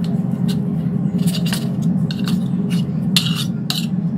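A table knife scraping and clicking against a ceramic plate in a series of short strokes while cutting through toasted bran bread, the strongest stroke about three seconds in. A steady low hum runs underneath.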